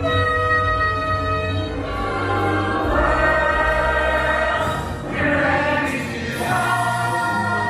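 Music with a choir singing long held notes that change about every two seconds, over an instrumental backing.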